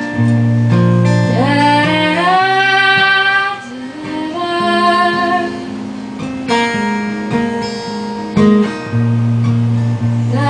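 Live solo acoustic guitar, strummed with low bass notes, under a woman's singing voice holding long notes that slide up into pitch.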